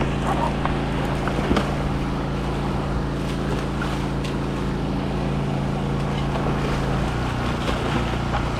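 Steady engine drone that shifts in pitch about seven seconds in, over wind and surf noise.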